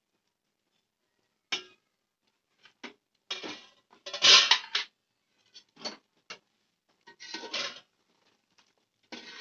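Metal cookware clattering: a steel lid and utensil knocking and scraping against a metal cooking pot in short, separate strokes, the loudest about four seconds in.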